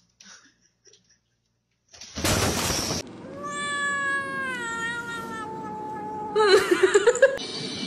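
A domestic cat's long meow that slides slowly down in pitch, followed about six and a half seconds in by a louder, wavering cry; these are the mumbling "nom nom" sounds of a cat as it is hand-fed. Just before them, about two seconds in, comes a loud noisy rustle lasting under a second.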